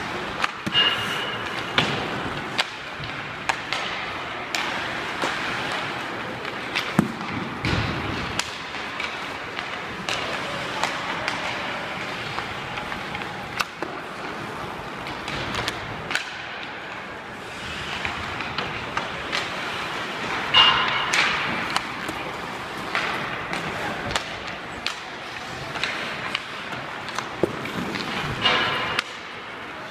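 Ice hockey practice: irregular sharp cracks of pucks struck by sticks and hitting the goalie and boards, over steady skate and rink noise.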